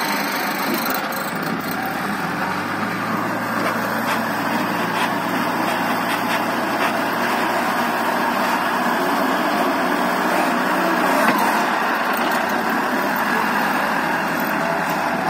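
LongKing wheel loader's diesel engine running steadily while its bucket pushes and scoops soil, with a single sharp knock about eleven seconds in.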